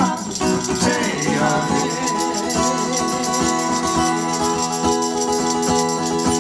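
Live band music: an instrumental passage of sustained chords over a steady percussion beat, with a sung line trailing off in the first second or so.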